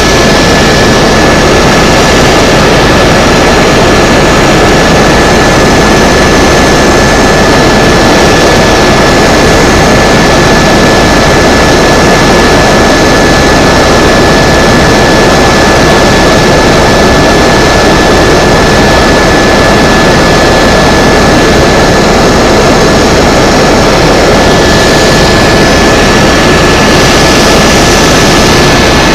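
Tour helicopter's turbine engine and rotor running steadily in flight: a constant high whine over a dense rumble with a fast pulsing in the low end.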